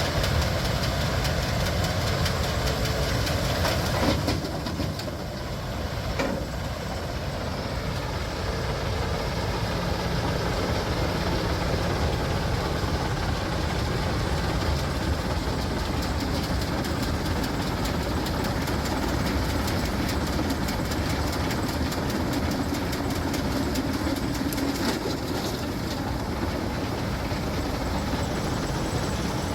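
Keestrack B4E mobile jaw crusher working under load on demolition concrete: a steady mechanical din with irregular knocking and clatter of concrete chunks, and sharper knocks about four and six seconds in.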